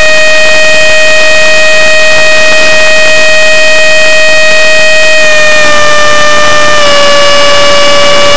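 70mm electric ducted fan of an RC jet running at high power, heard up close as a loud, steady whine. The whine drops slightly in pitch in two small steps, about five and seven seconds in.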